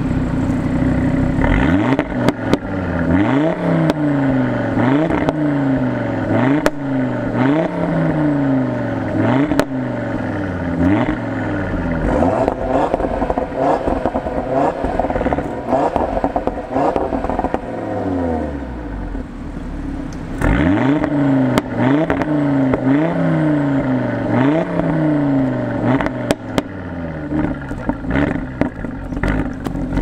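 Audi RS3's turbocharged 2.5-litre inline-five exhaust being revved while parked, each blip climbing and falling back about once a second, with crackles on the overrun. The revs are held higher for a few seconds near the middle, drop away briefly about two-thirds in, then the blipping starts again.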